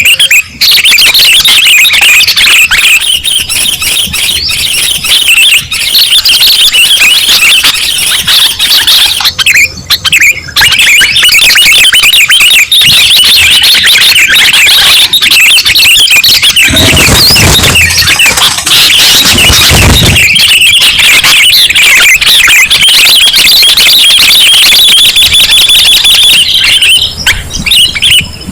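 Sooty-headed bulbuls (kutilang) calling in a loud, dense, unbroken chatter of rapid high-pitched notes, a bird-lure recording; a few low thumps come past the middle.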